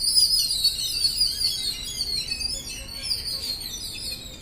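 A flock of house sparrows chirping all at once, a dense, continuous high twittering with no breaks.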